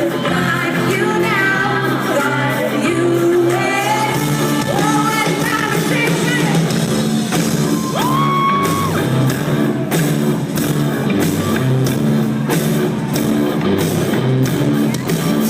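Live rock song with a woman singing lead over the band, echoing in a large hall. About eight seconds in she slides up into a long held note.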